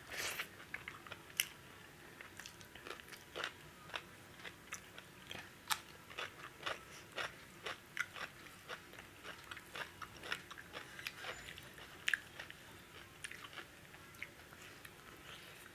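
Close-miked chewing and lip-smacking of chicken curry and rice eaten by hand: a steady run of short irregular clicks, a few each second, louder for a moment at the start and again near the end.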